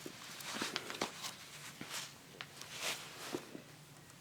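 Faint scattered rustles and light taps of handling and movement.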